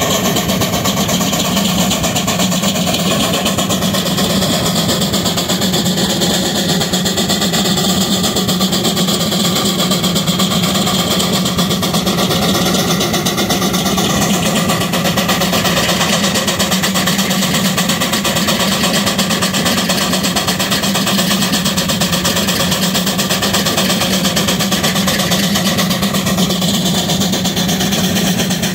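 Steam traction engines working hard under load, their exhaust chuffing up the smokestacks in a rapid, steady beat.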